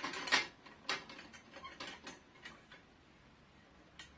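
Parts of a bird feeding station being handled and fitted together: a couple of louder knocks at the start, then a string of light clicks and clinks, with one more click near the end.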